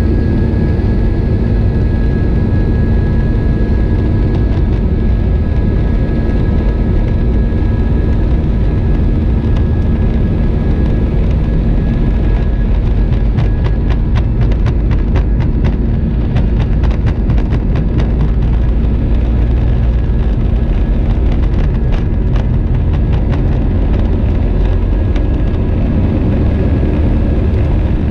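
Airbus A320 at takeoff thrust heard inside the cabin by the wing, a loud steady engine rumble with a high fan tone that fades about halfway through. From about halfway on, rapid irregular thuds from the landing gear rolling fast over the runway as the takeoff roll nears rotation.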